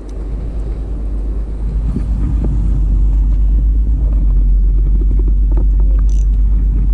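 Wind buffeting an action camera's microphone: a loud, jittery low rumble that builds over the first few seconds and then holds, with a few faint clicks.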